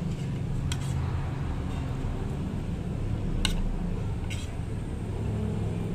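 A spoon and fork clinking against a ceramic plate three times while the food is scooped up, over a steady low hum.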